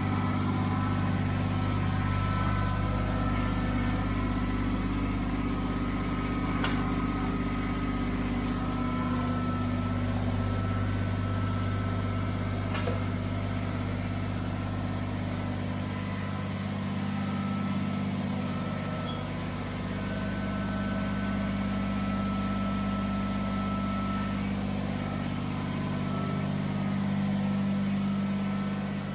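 Kubota BX23s compact tractor's three-cylinder diesel engine running steadily at low speed, with a few faint clicks over it.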